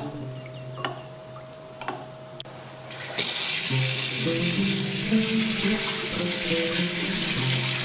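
A few light clicks of a metal spoon against a glass bowl. About three seconds in, a kitchen tap is turned on full and water runs steadily into a stainless steel sink, splashing as a bunch of parsley is rinsed under the stream.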